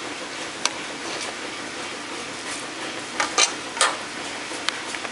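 Fish and sauce cooking in a metal pot with a steady sizzle, and a few sharp clinks of a utensil against the pot, the loudest in a quick cluster about three to four seconds in.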